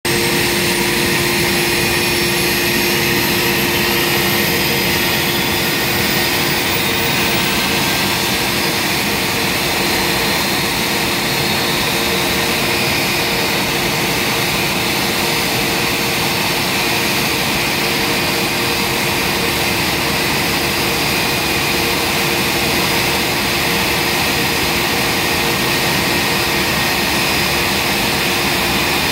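IAE V2500 turbofan on an Airbus A320 spooling up during its start. A high whine climbs in pitch over the first seven seconds or so, over a steady loud roar with a constant low hum.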